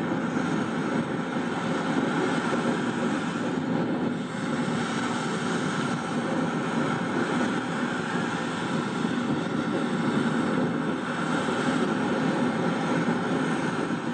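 A steady, even rushing drone with a faint hum running through it.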